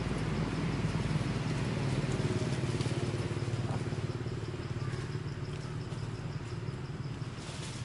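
An engine idling steadily, a low, fast-pulsing hum that eases slightly in the second half.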